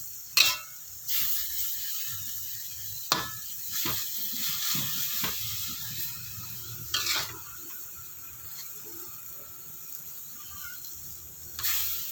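Water spinach stir-frying in a pan: a steady sizzle, broken about six times by a spatula scraping and knocking against the pan as the greens are stirred.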